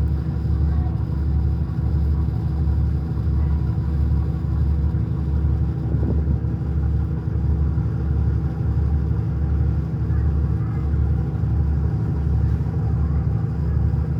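A boat's diesel engine running, a steady low rumble with an even pulsing throb and a constant hum above it.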